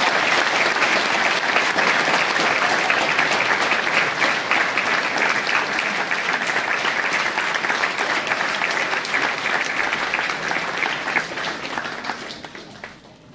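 Audience applauding: dense, steady clapping that dies away over the last second or so.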